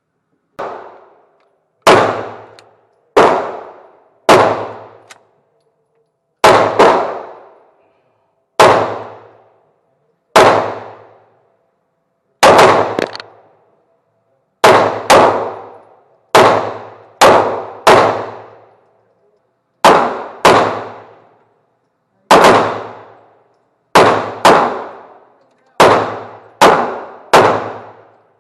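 Gunshots at a shooting range: about two dozen sharp, loud shots at an uneven pace, sometimes in quick pairs and sometimes two seconds apart, each dying away over about a second.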